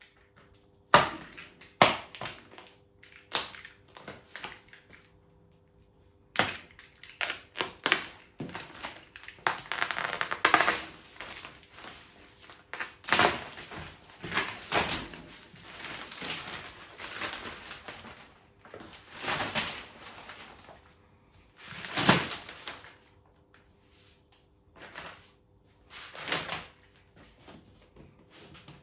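Cardboard box and packaging being handled and opened: irregular sharp knocks and clacks between stretches of crinkling and rustling.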